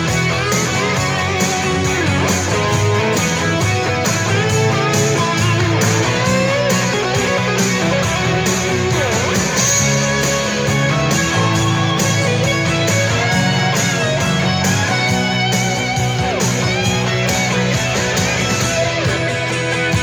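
Rock song instrumental section with no vocals: an electric guitar lead plays bending, wavering notes over strummed guitar, bass and a steady drum beat.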